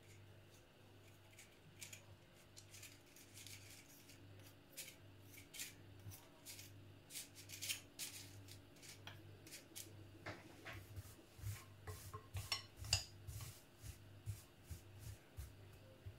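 Metal teaspoons clicking and scraping against each other and against a glass bowl as sticky chocolate-coated puffed rice is spooned into paper cupcake cases. The clicks grow busier and louder from about two-thirds of the way in, over a low steady hum.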